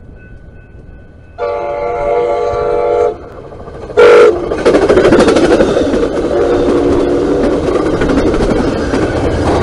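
Amtrak California passenger train, cab car leading, sounds its air horn in a long blast with several notes, then a short blast as it closes in. It then rushes past at speed with a loud, steady clatter and rumble of wheels on rail.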